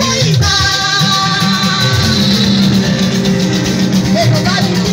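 Live band music played loud: sustained keyboard chords over a steady bass line and drums.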